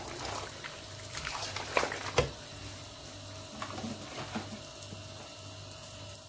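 Penne and chicken in a creamy tomato sauce sizzling in a pan while being stirred with a spatula, with a few knocks of the spatula against the pan, the loudest about two seconds in.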